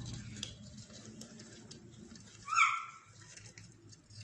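A parrot gives one short call with a slightly falling pitch about two and a half seconds in, over faint scratching and clicking in the cage.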